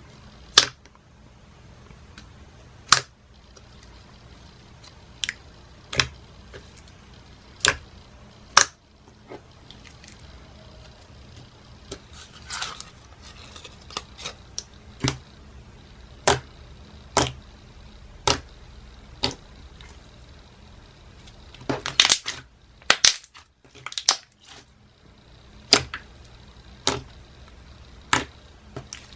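Thick glossy white glue slime being played with, giving loud, sharp bubble pops every second or two, with a quick run of several pops about 22 seconds in, over a faint low hum.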